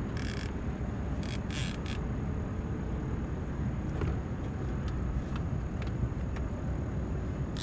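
A fishing reel's drag giving line in short buzzing spurts as a big flathead catfish pulls against the bent rod, with a few spurts near the start and more about a second and a half in. A steady low rumble runs underneath.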